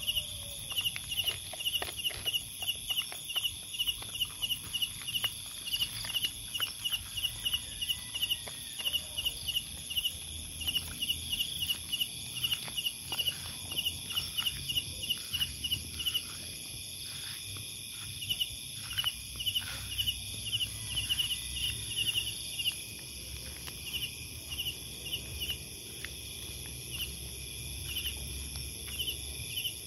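Night crickets chirping in quick clusters of short pulses over a steady high drone of insects, with a low wind rumble underneath. Faint clicks come through mostly in the first half.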